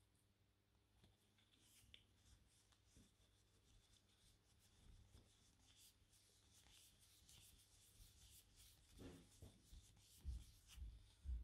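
Faint rubbing of a microfiber cloth over an eyeglass lens, buffing off dried dishwashing liquid to leave an anti-fog film, with a few soft low bumps near the end.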